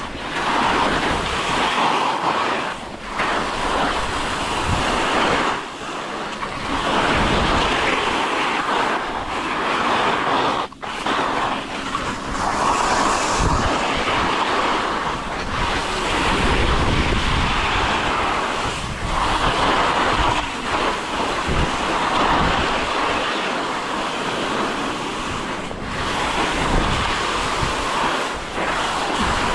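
Wind rushing over the microphone: a dense hiss with low buffeting, swelling and easing in uneven gusts.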